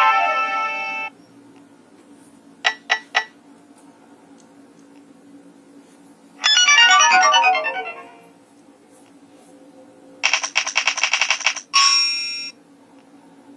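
Nokia 2865 phone playing a series of short ringtone and alert-tone previews through its speaker: a melody that ends about a second in, three quick beeps, a falling run of notes, then a fast-pulsing trill and a short final tone.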